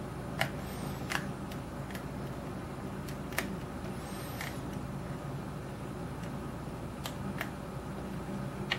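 Light, scattered metallic clicks of a hook pick and tension wrench working the pins of a Yale-style pin tumbler lock cylinder during single-pin picking. There are about half a dozen sharp ticks at irregular spacing, with a few soft scrapes between them, over a steady low hum.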